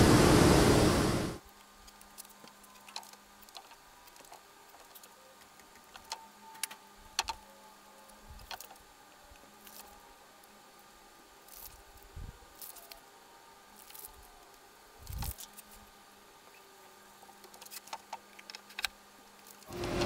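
Jointer running under a wide walnut board for about a second and a half, then cut off abruptly. After that there are only scattered light taps and clicks from handling boards and a faint steady hum, with machine noise coming back right at the end.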